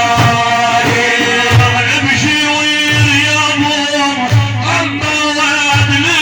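Middle Eastern devotional music: low drum beats recurring every second or so under a wavering, ornamented melody line.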